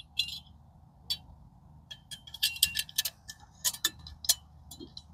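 Metal clicking and clinking as a folding metal H-frame is opened out and fitted into the top of an aluminum camping box: a dozen or so irregular light knocks and taps, with a brief metallic ring about two and a half seconds in.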